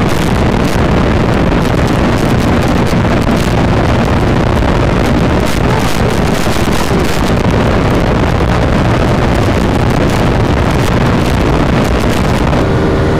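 Heavy wind rushing over the microphone together with the drone of the Royal Enfield Interceptor 650's parallel-twin engine held at high speed, steady throughout. Shortly before the end the wind noise drops away and a steady engine hum with distinct tones takes over.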